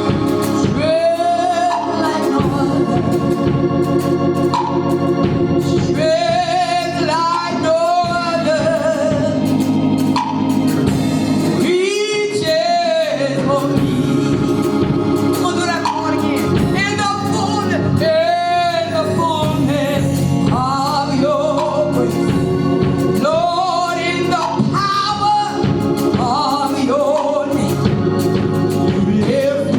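Gospel music: a singer's voice over sustained Hammond-style organ chords.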